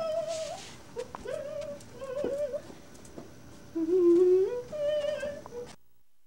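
A child humming a short tune in several held, wavering notes, with a few light knocks between them; the sound cuts off abruptly near the end.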